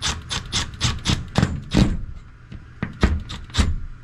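Milwaukee cordless drill driving a screw, heard as a run of irregular sharp knocks and scrapes, several a second, that stop near the end.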